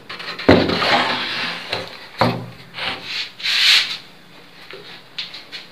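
A wooden tray filled with bran-and-feed bedding being slid into a wooden rack shelf: wood scraping and rubbing on wood in several pushes, the longest about a second in.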